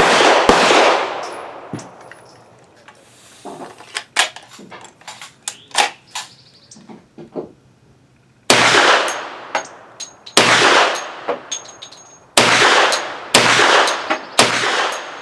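A Hi-Point 1095 Yeti 10mm pistol firing 170-grain rounds: one shot right at the start, then after a pause of about eight seconds a string of shots a second or two apart, with lighter clicks and clinks in between. The pistol cycles every round without a stoppage.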